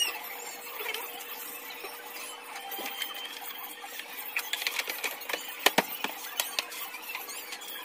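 Scooter's plastic front cowl being pressed and fitted into place by hand: a cluster of sharp plastic clicks and taps about halfway through, over a faint steady hum.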